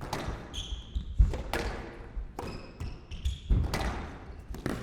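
A squash rally in play: a series of sharp, irregularly spaced hits of the rubber ball off rackets and court walls, with short high squeaks of court shoes on the wooden floor between them.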